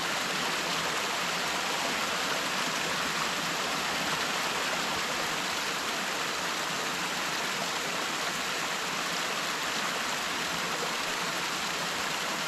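A small mountain stream cascading over rocks: a steady rush of falling water.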